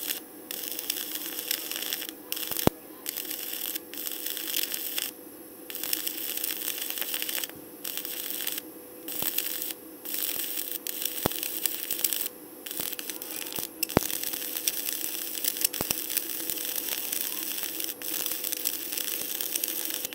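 Arc200 stick welder at 150 A running a 3.2 mm electrode whose flux coating has been soaked in water. The arc crackles unevenly, with brief breaks and sharp spatter pops. The jerky arc is from the wet flux coating cracking.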